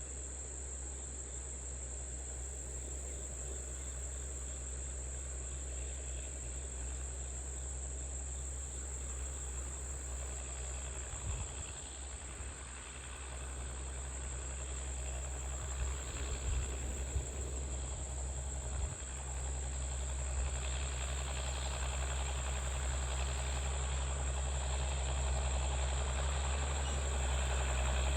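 Allis-Chalmers D17 tractor engine running steadily, growing louder toward the end, with a few short knocks in the middle. Crickets chirr in a steady high drone over it.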